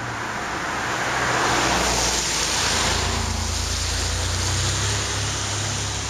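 Cars passing on a rain-wet road, tyres hissing on the wet pavement; the hiss swells about one to three seconds in, and a low engine hum builds through the second half.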